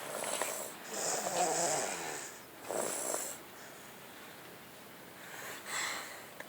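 A sleeping baby snoring, a few rough, purring breaths, the longest about a second in, with quieter gaps between.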